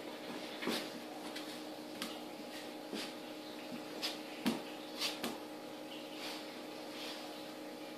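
Scattered light knocks and scuffs, about eight of them at uneven intervals, the loudest about four and a half seconds in, from a cat and a dog scrabbling and bumping on a tiled floor as they play-wrestle. A steady low room hum runs underneath.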